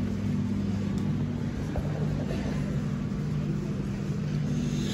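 Steady low hum with several level tones, the background drone of supermarket machinery such as refrigerated cases and air handling.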